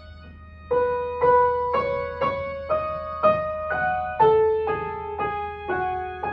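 Grand piano played solo: after a short pause, a slow melody of single notes about two a second, each note ringing on, the line stepping lower toward the end.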